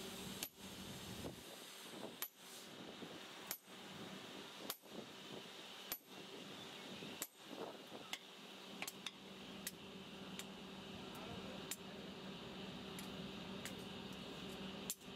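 Hammer blows ringing on steel at an anvil, where a tool is held against a red-hot steel bar: six heavy strikes about every second and a quarter, then lighter metallic taps for the rest. A steady low hum runs underneath.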